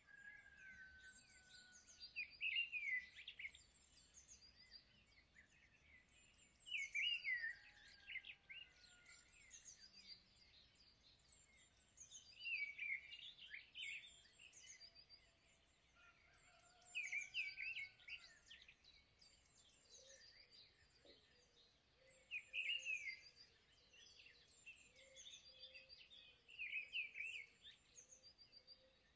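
Bird singing: a short phrase of quick chirps repeated about every five seconds, over faint background hiss.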